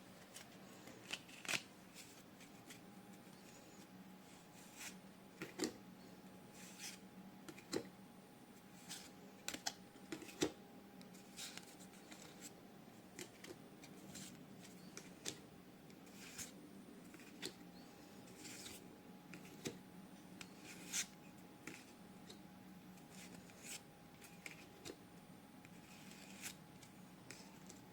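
Pokémon trading cards being handled and flipped through one by one: irregular soft snaps and slides of card stock.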